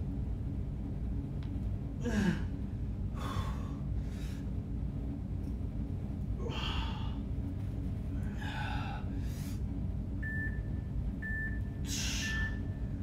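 Heavy, hard breathing from a man doing yoga push-ups, a forceful breath every second or two over a steady low room hum. Near the end an interval timer gives three short beeps about a second apart, counting down the end of the work period.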